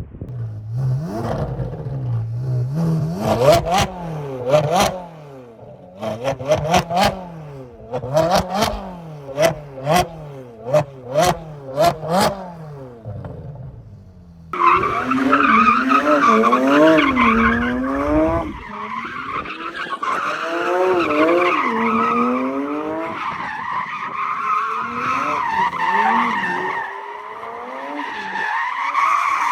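A sports car engine revving hard, its pitch climbing and dropping again and again, with short sharp cracks in between. About halfway through, tyres start squealing and keep on, the car sliding sideways in a drift while the engine note wavers beneath.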